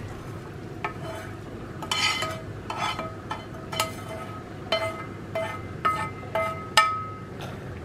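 Steel kitchen utensils clinking: a metal spoon and a pan knocking against a steel mesh strainer while hot jaggery syrup is emptied out. About a dozen ringing taps come at uneven intervals, and the loudest is near the end.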